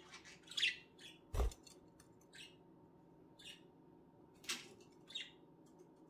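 Budgerigars giving about five short, soft chirps a second or so apart. One low thump comes about a second and a half in.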